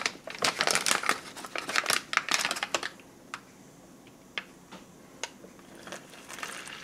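MRE drink pouch crinkling for about three seconds as it is handled and opened. A few faint ticks follow, and near the end hot water starts pouring into the pouch from a kettle.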